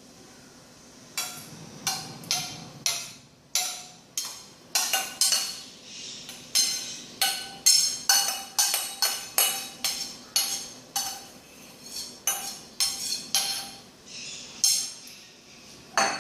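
A kitchen utensil knocking against a dish again and again, likely adding the prepared dressing to the salad bowl: about two dozen sharp clinks, each with a short ring, irregularly spaced at roughly one to two a second, starting about a second in.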